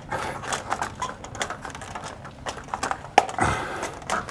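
Irregular light clicks and rustling as curtain fabric is pushed and bunched along a metal spring tension rod, with one sharper click a little over three seconds in.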